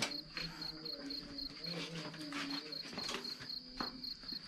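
Crickets chirping in a steady fast pulse, several chirps a second, with a few light clinks of kitchen utensils.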